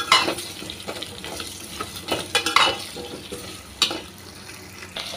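Potato pieces frying in hot oil in a metal pot with a steady sizzle, while a slotted metal spoon stirs them, scraping and clinking against the pot several times.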